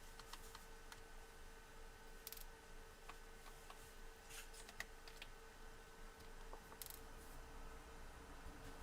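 Near silence with a few faint, brief clicks and scrapes of small screws and plastic netbook parts being handled during disassembly.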